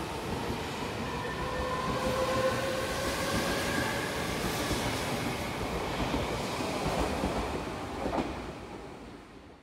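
Odakyu 1000 series electric train pulling out of the platform: a motor whine rising slowly in pitch over the clatter of wheels on rail joints as the cars pass. The sound fades away near the end as the train draws off.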